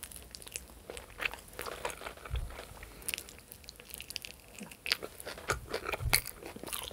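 Close-miked eating of chicken wings: biting and chewing with many short, irregular crackly clicks and mouth smacks, and a few soft low thumps.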